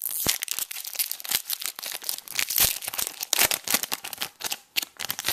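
Trading-card pack wrappers being torn open and crinkled by hand, a dense run of crackling rustles and sharp tears that stops suddenly at the end.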